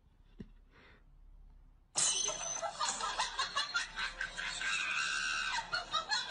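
Laughing in quick repeated bursts that starts suddenly about two seconds in, after a quiet opening.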